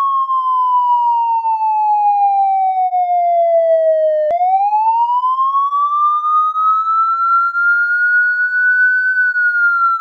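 Police siren sounding a slow wail: one steady tone falling for about four seconds, then, after a sharp click, rising again over the next five seconds and starting to fall near the end.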